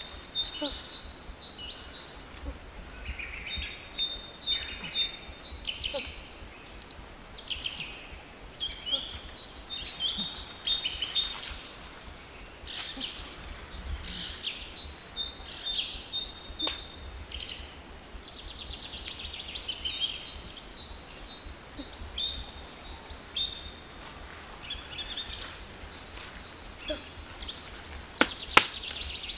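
Wild birds chirping and calling, with one high, clipped call coming back every few seconds. Near the end come a couple of sharp knocks from a stick striking the ground.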